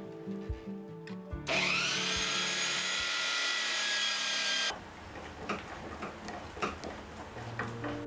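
Power drill spinning up about a second and a half in, running steadily for about three seconds, then cutting off suddenly, over background music with a steady beat. Light knocks and clicks of wood being handled follow.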